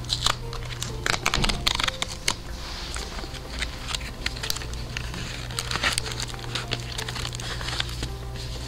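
Screen-protector retail packaging being opened and handled: paper and plastic crinkling and rustling, with many scattered sharp clicks and taps.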